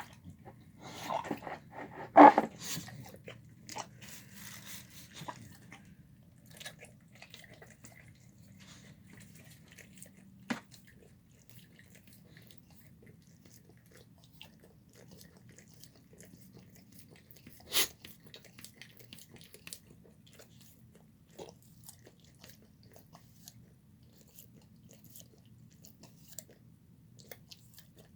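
A dog chewing and eating a meal of pulled chicken and pork with rice. The chewing is busiest in the first few seconds, with a loud click about two seconds in. After that come a few sharp clicks and scattered faint ticks.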